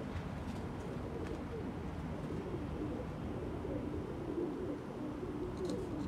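Domestic pigeons cooing, several low wavering coos overlapping without a break.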